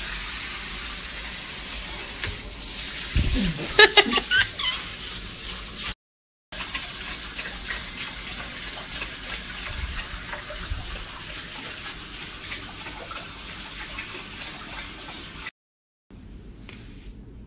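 Kitchen faucet running water over hands being washed in a sink, a steady splashing hiss, with a few sharp knocks about three to four seconds in. The water sound stops abruptly twice at clip cuts, and near the end a quieter stretch follows.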